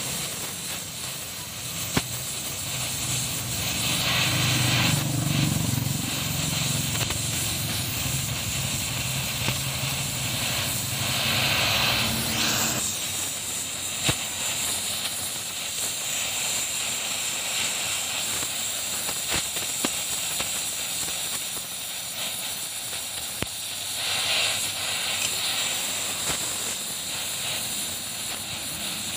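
Oxy-acetylene gas-welding torch flame hissing steadily while brass filler rod is melted onto a steel shaft. A low rumble sits underneath for the first half and cuts off about halfway through.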